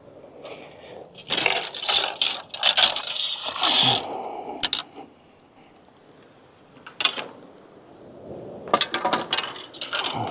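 Fishing rods and reels being handled: irregular clicks, clacks and scrapes in several clusters, with short pauses between.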